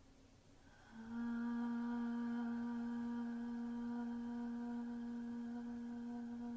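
Vocal toning: a woman's voice holds one long steady note, starting about a second in.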